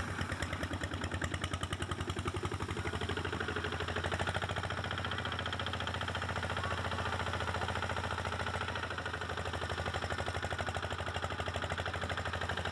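Two-wheel walking tractor's single-cylinder diesel engine chugging steadily under load with a fast, even beat as it hauls a loaded trailer through water and up a muddy bank.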